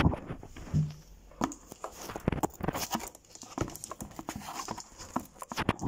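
Handling noise from a phone being fumbled, with fingers rubbing and knocking against the phone close to its microphone, giving irregular clicks, knocks and rustles.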